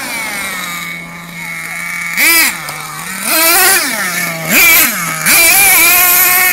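Axial .32 nitro engine of an RC monster truck, running steady and then blipped through four throttle bursts, its pitch swinging up and back down with each, the last burst held for over a second.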